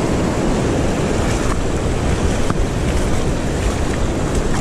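Surf rushing over rocks, with wind buffeting the microphone: a steady, loud wash of noise.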